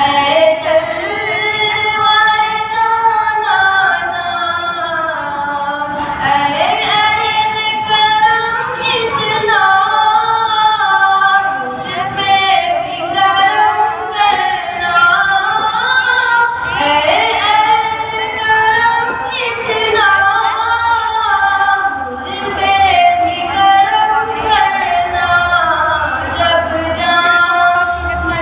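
A boy singing a devotional naat unaccompanied into a microphone, in a high voice with long held notes that bend and waver, broken by short breaths between phrases.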